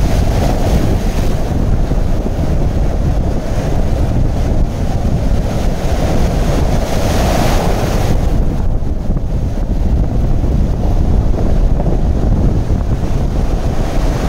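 Sea surf breaking and washing up the shore close by, with wind buffeting the microphone as a heavy low rumble. The surf swells louder for a moment around the middle.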